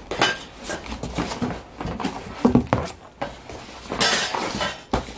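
Cardboard box and packaging being handled as an item is pulled out: irregular knocks and scrapes, with a burst of paper rustling about four seconds in.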